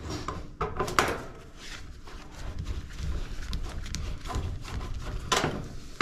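Screwdriver working the green grounding screw on a clothes dryer's sheet-metal back panel, with clicks and scrapes of the tool and gloved hands against the metal; the sharpest clicks come about a second in and near the end. This is the neutral wire being bonded to the frame to cure the shocking cabinet.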